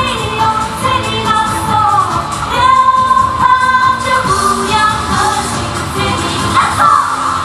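Asian pop-style song playing loudly: a singer holds long, wavering notes over an instrumental backing.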